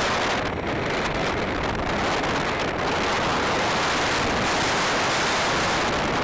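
Loud, steady rush of wind and propeller noise on the camera mounted aboard an E-flite Apprentice RC plane in flight.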